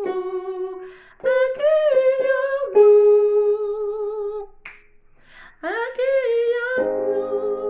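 A woman singing a soprano harmony line unaccompanied, holding long notes in three or four short phrases with brief breaks and a breath between them. Near the end a sustained keyboard chord comes in beneath her voice.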